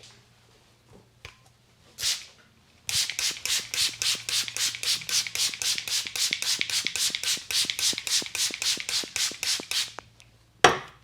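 A barber's hands striking the head in a fast percussive massage, a rapid, even series of slaps at about five a second for around seven seconds. One sharp, loud smack comes near the end.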